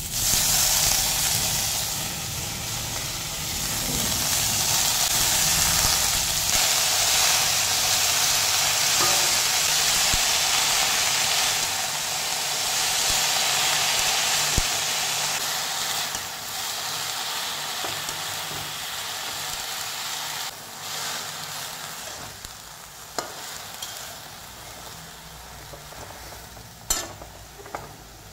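Fresh leafy greens frying in hot oil in a metal wok: a loud sizzle sets in as they go into the pan and slowly dies down as they wilt. Near the end come a few sharp clicks and scrapes of the metal spatula against the wok.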